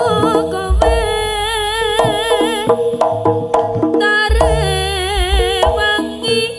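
Jaranan accompaniment music: a wavering high melody line over held steady tones, with deep drum strokes about a second in and again after four seconds. The music fades away near the end.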